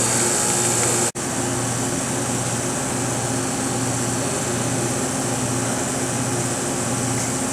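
Cooling fans of a Thermco MB-71 Mini Brute tube furnace running steadily with a low hum. The sound cuts out for an instant about a second in and comes back slightly quieter.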